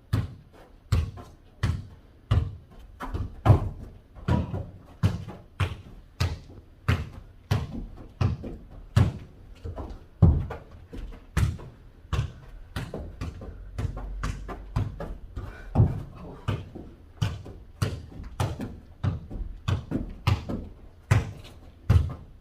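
A ball kicked back and forth and bouncing on the floor in a rally of mini jokgu (foot volleyball), giving short sharp thuds about once or twice a second.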